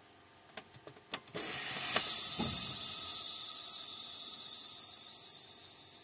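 A few light clicks as a dash air-brake valve knob is pushed in, then, about a second and a half in, a loud hiss of compressed air that slowly fades: the semi truck's air brakes releasing.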